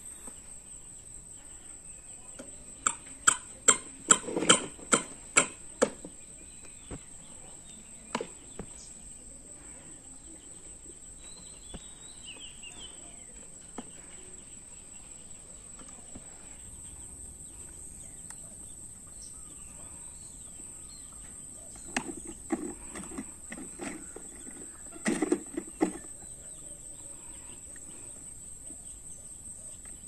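Steady high chirring of crickets throughout, with sharp clacks and gravel crunches from a plastic ride-on toy excavator's digger arm and bucket working the gravel: a quick run of about eight a few seconds in, one more soon after, and two short clusters later on.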